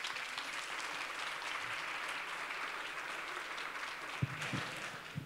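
Audience applauding, many hands clapping steadily and dying away near the end.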